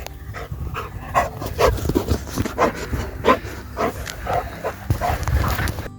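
A dog panting, about three breaths a second.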